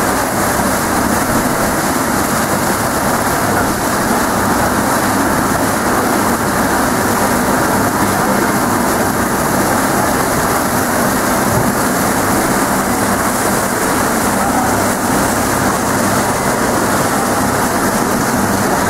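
Steady rushing noise of a boat underway: churning wake water and wind buffeting the microphone.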